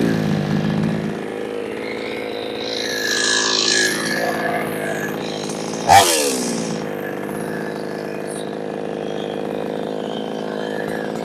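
New West 628 two-stroke chainsaw engine settling down to a steady idle in the first second, with one quick blip of the throttle about six seconds in before it drops back to idle.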